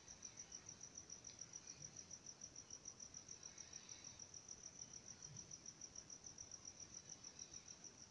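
Near silence with faint cricket chirping: one high-pitched note pulsing steadily about seven times a second.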